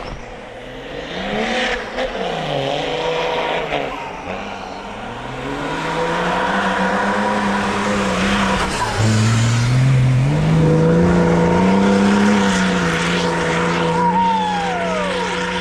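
Off-road 4x4's engine revving under throttle, its pitch rising and falling, then jumping up about halfway through and holding higher and louder. A steady high whine sits over the engine.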